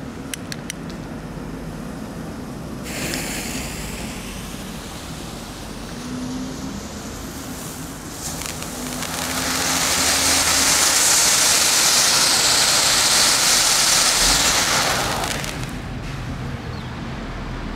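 Small category-1 ground fountain firework burning: a few clicks at the start, then a hiss of sparks that begins about three seconds in and swells to a loud, steady hiss for some six seconds before dying down near the end.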